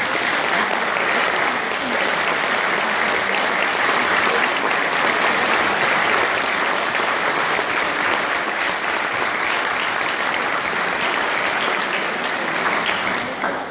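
Audience applauding in a concert hall: steady, dense clapping that dies away near the end.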